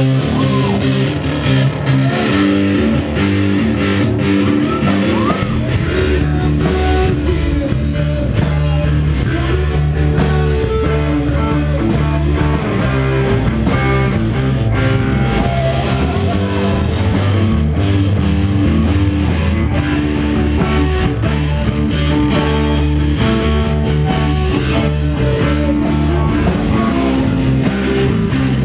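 A rock band playing live, with an electric guitar close up and loud. Drums and bass come in about five seconds in.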